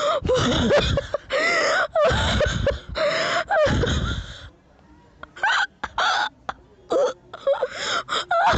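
A person's high-pitched, squeaky wheezing laughter: long bursts of gasping laughs for about four seconds, a brief lull, then shorter bursts.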